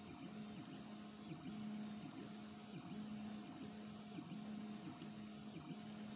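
Home-made 3D printer working as a pen plotter: its stepper motors whine in short moves that jump in pitch every fraction of a second as the pen sketches, over a steady faint tone.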